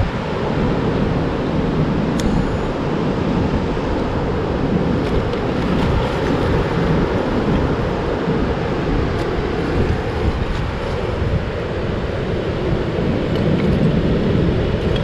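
Wind buffeting the microphone over the wash of surf on a beach: a steady, even low rumble and hiss, with a few faint clicks.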